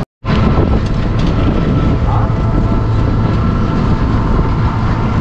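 Steady rumble and low hum of a vehicle travelling along a road, with wind rushing on the microphone. The sound drops out for a moment at the very start, then runs on evenly.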